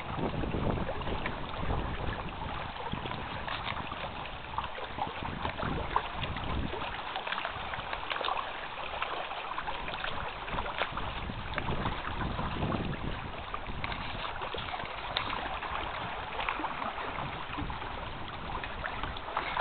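Wind buffeting the microphone with a gusty low rumble, over water lapping and small crackling ticks around a canoe on open water.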